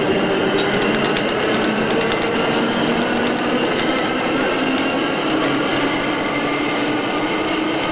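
Paris Métro train running, heard from inside the carriage: a steady rumble and whine, with a quick run of wheel clicks over the track in the first couple of seconds.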